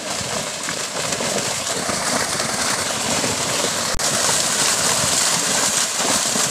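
Many fish thrashing and splashing in shallow water penned in by a drag net, a dense, continuous churning that grows louder as the net closes.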